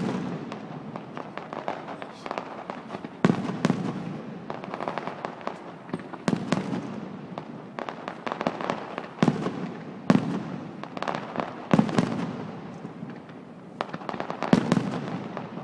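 Fireworks going off: a run of aerial shell bursts, sharp bangs every second or two, each trailing a crackle and echo.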